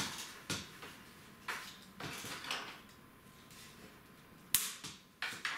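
Plastic cable ties being pulled tight around bundled computer cables, with the cables rustling and several sharp clicks, the loudest about four and a half seconds in.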